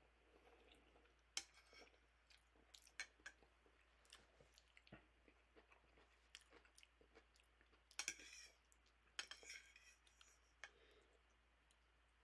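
Faint chewing of a mouthful of instant noodles, with scattered sharp clicks and two louder spells of noise about eight and nine seconds in.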